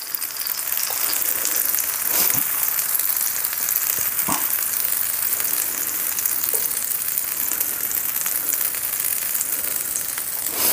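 Dosa batter sizzling on a hot griddle while a ladle spreads it outward in circles: a steady high hiss.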